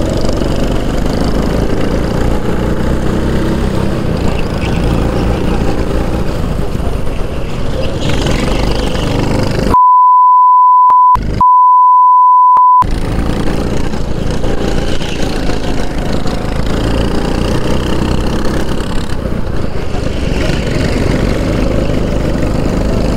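Go-kart engine running at race pace from the driver's seat, its note rising and falling through the corners. About ten seconds in, a steady high beep sounds twice in a row, blanking out the engine, like a censor bleep; it is the loudest thing.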